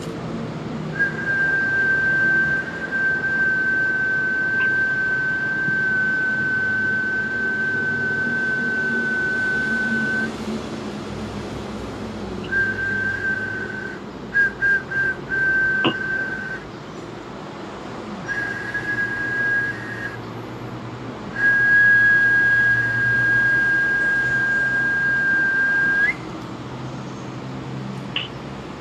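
A high, steady whistled note held for several seconds at a time, broken by short gaps. Several quick toots come around the middle, and another long hold ends with a slight upward flick.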